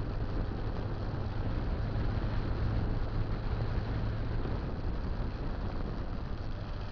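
Motorcycle engine running steadily while riding, a low steady hum under wind and road noise, easing off slightly in the second half.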